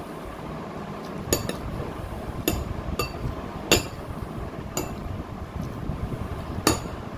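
A metal spoon clinking against a glass serving bowl and ceramic plates: several sharp, ringing clinks at irregular intervals, over a steady low rumble.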